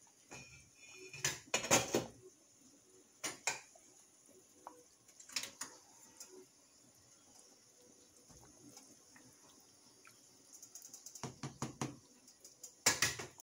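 Scattered sharp clicks and clinks from a pot of chicken afritada simmering in tomato sauce on the stove, bunched about a second in and again near the end.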